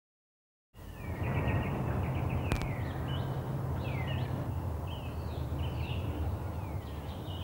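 Outdoor ambience: birds chirping again and again over a steady low rumble, with one sharp click about two and a half seconds in. The sound starts abruptly after a moment of silence.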